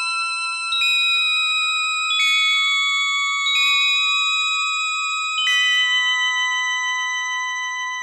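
Background music played on a small synthesizer: slow, held chords, a new chord starting about every one to two seconds.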